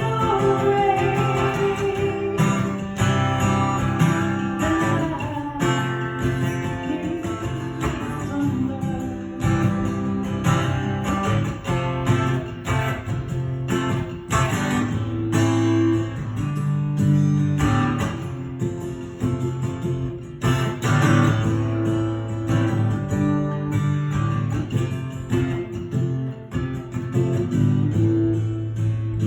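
Guitar playing an instrumental passage of a song, with strummed chords and picked notes.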